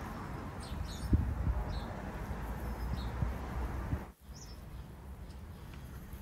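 Birds chirping faintly and intermittently over a steady low outdoor background, with a few soft knocks a second or so in and again near the fourth second. The sound drops out briefly about four seconds in.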